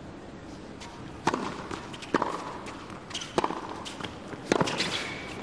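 Tennis ball struck by rackets in a baseline rally: four sharp hits about a second apart, with fainter ticks between them.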